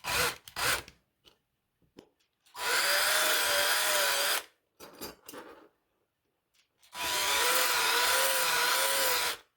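Electric drill running in two bursts of about two seconds each, drilling out a rivet of a diecast toy car so the parts can be taken apart. There are a few small handling clicks before and between the bursts.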